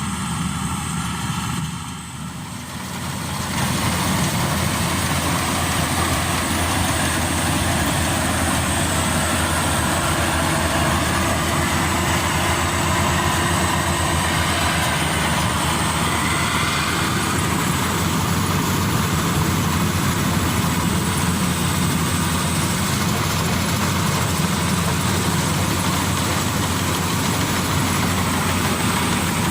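Maxxi Bimo Evo Xtreme combine harvester running, its engine and harvesting machinery making a steady mechanical din with a low hum. It dips briefly about two seconds in, then comes back louder and holds steady.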